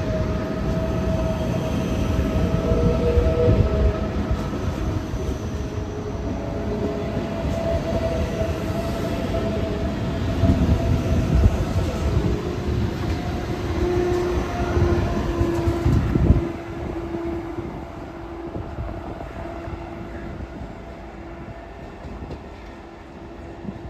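A train passing, its rumble running with steady whining tones until about two-thirds through, where the rumble drops away abruptly. A quieter steady tone carries on after that.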